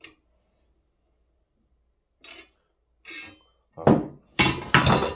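Steel parts of a Birchwood Casey clay pigeon launcher clinking and knocking as they are handled: a couple of light clinks, then louder metal clanks and rattles in the last second and a half.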